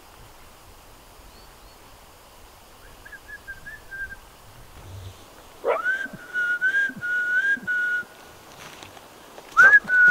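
A person whistling to call a dog. A faint warbling whistle comes about three seconds in. Then a louder whistle rises in pitch and holds one note in several short, slightly warbling pieces for about two seconds. A short rising whistle comes near the end.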